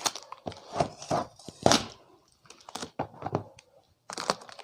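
Plastic wrapping rustling and crinkling in irregular handfuls, with a few light knocks, as a small wrapped package is opened by hand.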